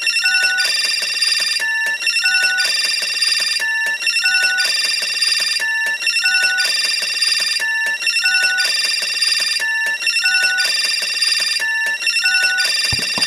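Electronic telephone ringing: a continuous warbling trill, with short beeps on two alternating pairs of pitches, repeating about every two seconds without a break. A few low knocks come near the end.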